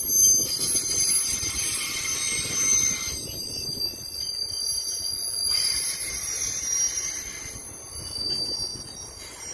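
Dead Bombardier MR-90 EMU commuter cars rolling past unpowered in a freight move, their wheels rumbling on the rails, with high-pitched wheel squeal on the curve that comes and goes several times as the cars pass.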